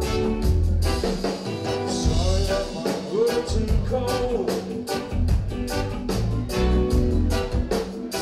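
Live reggae band playing: drum kit with a steady beat, pulsing bass and guitar, with a saxophone line over them.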